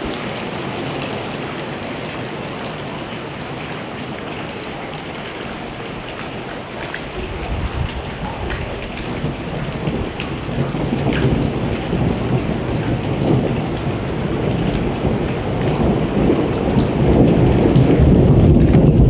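Heavy rain falling steadily, and from about seven seconds in a low rumble of thunder builds, growing louder toward the end.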